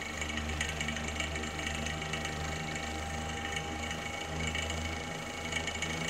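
Small synchronous fan motor from an electric fan heater running with its plastic blade set on, held in the hand: a steady hum with a thin higher whine that fades near the end. It vibrates a lot because the blade set is slightly out of balance.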